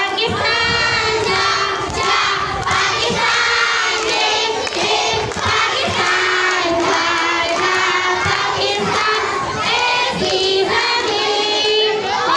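A girl singing a patriotic song into a handheld microphone over a PA, with a crowd of children's voices joining in and shouting.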